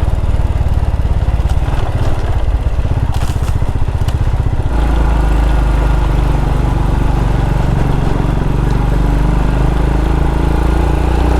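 Single-cylinder adventure motorcycle engine running under way on a dirt track, with an even beat. The engine note changes about halfway through, as with a throttle or gear change.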